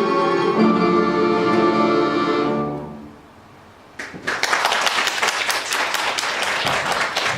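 An ensemble of Russian folk instruments ends the piece on a held chord that dies away about three seconds in. After a short pause the audience starts applauding.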